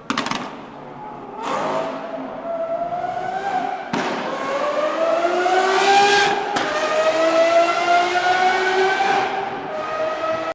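Car engine accelerating hard, its pitch climbing in three pulls and dropping back between them about 4 and 6.5 seconds in, as at upshifts.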